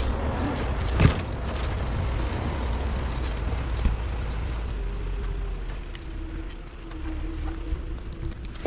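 Forestry skidder engine rumbling at low revs while it drags a log, with a few sharp knocks and clanks, the loudest about a second in, and a steady drone in the second half.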